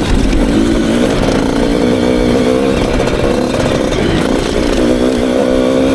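Dirt bike engine running as it is ridden, its note wavering up and down in pitch with the throttle.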